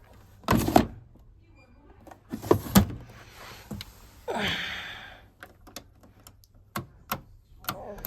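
Indesit IWC 6145 front-loading washing machine being handled: heavy knocks from the door and drum twice, a rushing sweep about four and a half seconds in, then a run of light clicks.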